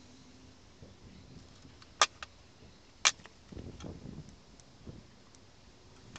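Light hand work on the door: two sharp clicks about a second apart, with fainter ticks and handling sounds around them.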